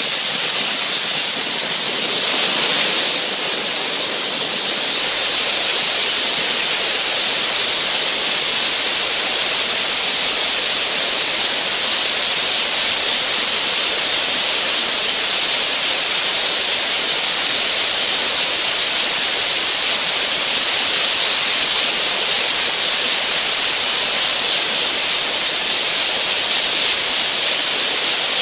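Soda blaster running: a loud, steady hiss of compressed air and baking-soda media blasting a car hood's paint. It builds up over the first few seconds, then holds steady.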